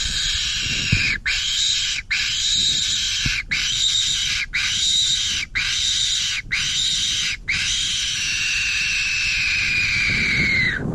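Hand-blown fox whistle being sounded to call a fox in: about seven short, high squeals roughly a second apart, each rising and falling, then one long drawn-out squeal that slides slightly down in pitch.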